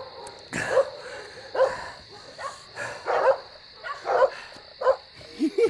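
A dog barking over and over, a short bark about every two-thirds of a second.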